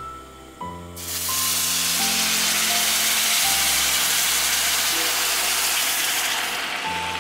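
Chicken stock poured into a hot cast-iron pan of dry basmati rice, hissing and sizzling loudly as it hits the hot metal; the hiss starts about a second in and fades near the end. Soft background music plays underneath.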